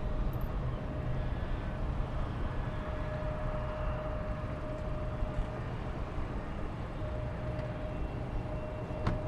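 Distant twin jet engines of a Boeing 777-200 on final approach: a steady low rumble with a thin steady whine that comes and goes. A single click near the end.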